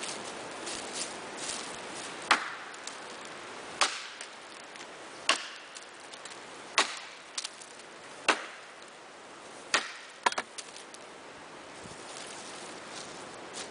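Wetterlings bushcraft axe chopping into a fallen log: about seven sharp blows, roughly one every second and a half, with a quick double strike near the end.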